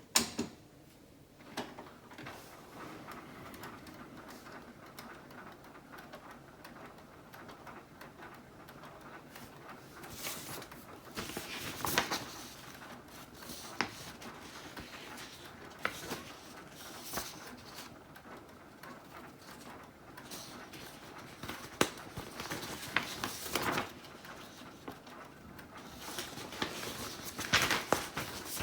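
Canon Pro9500 Mark II inkjet printer running a print-head cleaning cycle on a clogged head: a steady low mechanical whir broken by scattered clicks and clunks, busiest about ten and twenty-two seconds in and again near the end.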